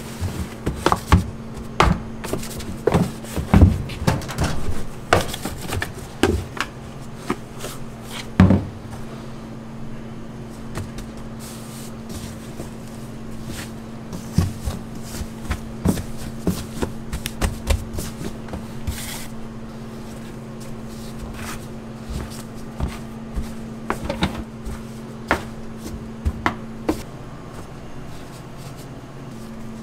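Bread dough being handled: a plastic bench scraper scraping around a plastic dough tub, then dough pressed and knocked on a steel counter and divided pieces set down in the tub, making irregular knocks, taps and scrapes, densest in the first third. A steady low hum runs underneath and drops out briefly near the end.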